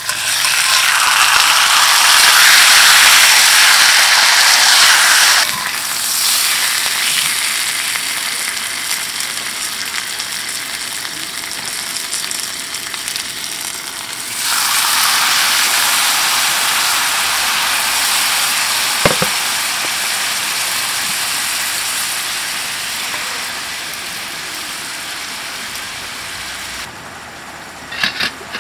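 Bone-in T-bone steak hitting a hot cast-iron skillet of oil and garlic, setting off a loud sizzle that eases after about five seconds. About halfway through, a dark sauce poured into the pan sets off a second burst of sizzling, which slowly dies down; a single light tap of tongs on the pan comes between.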